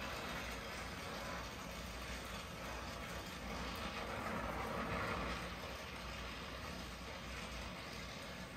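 Oxy-acetylene torch flame hissing steadily while it heats the hub of a stuck pulley, a little louder about halfway through.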